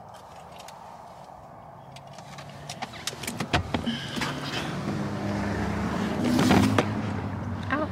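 Someone moving about inside a parked car and getting out: a quiet hum with small clicks, then from about three and a half seconds a louder low steady hum, and a loud rush of noise near six and a half seconds.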